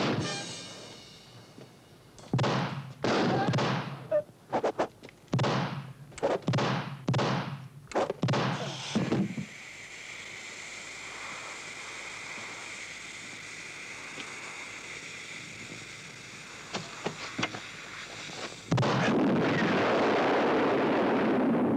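Action-film battle effects: a rapid series of about a dozen sharp bangs of gunfire and explosions, then a steady hiss. Near the end a single loud blast goes off and carries on as a sustained roar.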